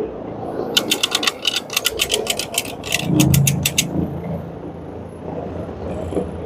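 Carpet-cleaning machine running as it is worked over the carpet, with a run of rapid mechanical clicking, about seven clicks a second, from about a second in to about four seconds in, over a low hum.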